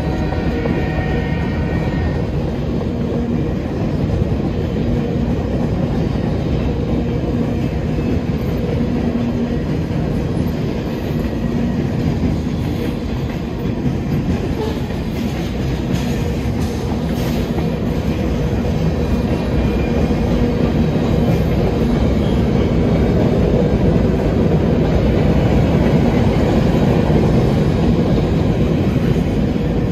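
Manifest freight train rolling past: a steady heavy rumble of wheels on the rails with clickety-clack from the freight cars. A horn blast ends about two seconds in.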